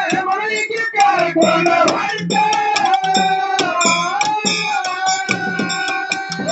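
A man singing a verse of a Dollu sung dialogue through a PA microphone, holding one long note in the middle, with small brass hand cymbals clashing along.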